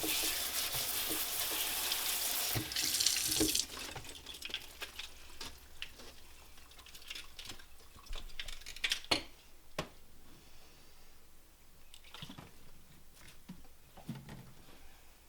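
Kitchen faucet running as celery stalks are rinsed under it, shut off about three and a half seconds in. A few light knocks and handling sounds follow.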